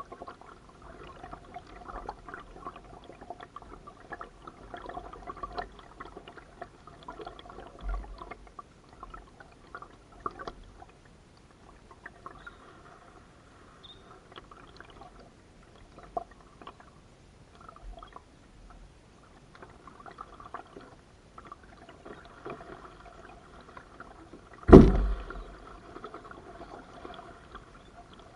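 Kayak paddling: the paddle dipping and splashing irregularly, water dripping and trickling off the blade. About 25 seconds in there is one sharp, loud thump.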